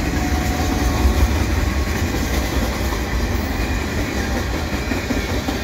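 Freight train cars (covered hoppers, boxcars, coil cars) rolling past at close range: a steady rumble of steel wheels on the rails with a clickety-clack.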